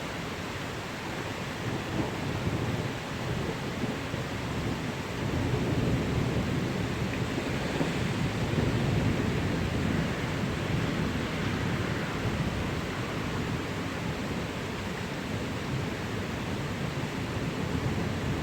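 Steady rain with low rolling thunder, the rumble swelling in the middle and easing off again.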